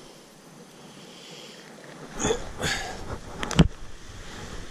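Handling noise: a quiet start, then rustling and several sharp knocks from hands working a wet cast net and a large fish, the loudest knock a little past three and a half seconds in.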